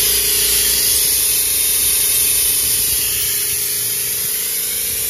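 Compressed-air oil extractor hissing steadily as it draws engine oil up through the dipstick tube into its canister, with a steady tone under the hiss.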